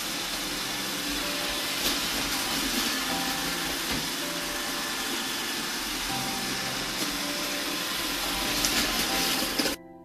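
iRobot Roomba 805 robot vacuum running on a hardwood floor: the steady whir of its vacuum motor and brushes, with a few sharp clicks. It cuts off suddenly just before the end, leaving soft piano music.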